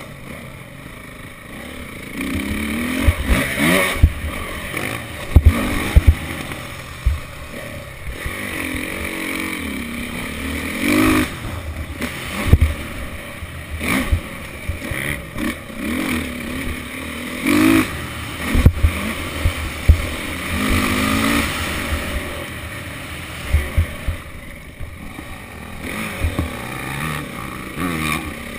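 Dirt bike engine heard from on board, revving up and down repeatedly as the rider works the throttle around a motocross track. Wind buffets the microphone, and there are frequent sharp knocks from the bumps.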